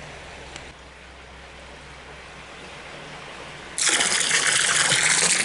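Faint steady flow of ditch water, then about four seconds in a sudden loud gush of pouring, splashing water for about a second and a half, tailing off into trickles.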